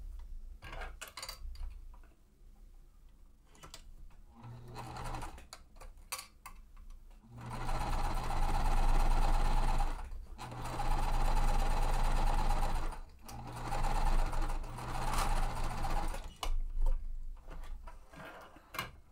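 Sewing machine stitching a seam: a short burst about four seconds in, then three longer runs of a few seconds each with brief stops between them. Scattered clicks of handling come before and after the stitching.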